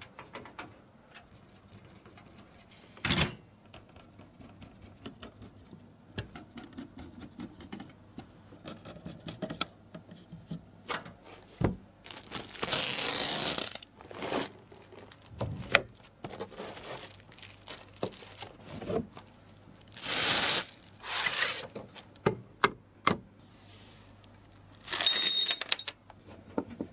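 Hands working on computer parts: irregular plastic and metal clicks, scrapes and small knocks, with three longer rustling bursts like packaging or parts being shifted, the last with a brief metallic ring.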